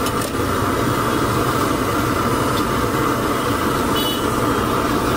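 Steady rumbling, hissing background noise of a street food stall, with a faint clink near the start and a short metallic ring about four seconds in.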